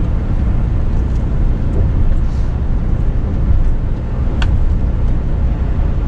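Steady in-cab drone of a Scania S500 truck cruising on a winter highway, engine and tyre rumble mixed, with a single short click about four seconds in.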